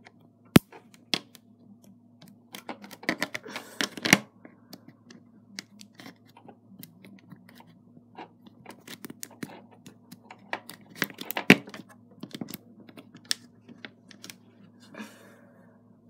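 Fingers handling small plastic Lego pieces close to the microphone: irregular clicks and taps as a minifigure, a Lego pistol and a rubber band are fitted together, with sharper clicks about half a second in and again around eleven seconds in.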